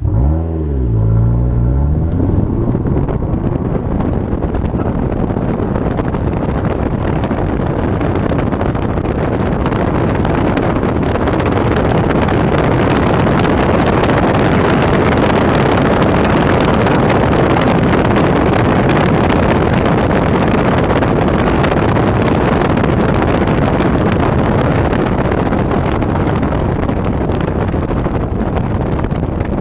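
Fiat Abarth 500's turbocharged 1.4 four-cylinder engine rising in revs in the first couple of seconds, then a steady rush of wind and road noise over the running car, as picked up by a GoPro's built-in microphone.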